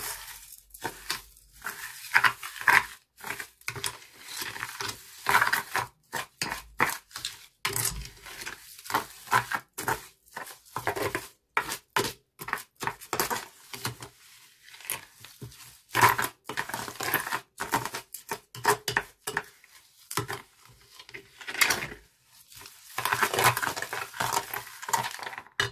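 Plastic spoon stirring slime and crunchy beads in a glass baking dish: a run of irregular short scraping, crackling strokes against the glass.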